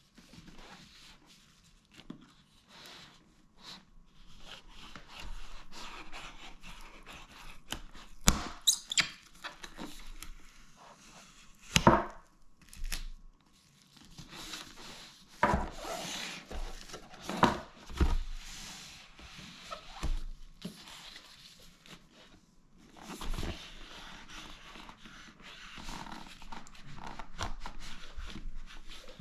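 Keyboard packaging being handled and opened: on-and-off rustling and scraping, broken by several sharp knocks and thunks.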